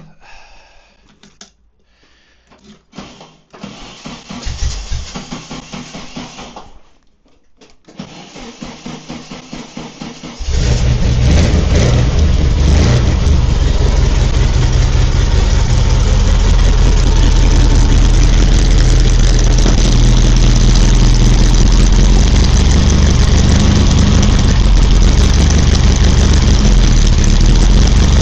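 A trike's Volkswagen engine is cranked by its starter twice, a few seconds each time, on a newly fitted starter switch. It catches about ten seconds in and runs steadily and loudly.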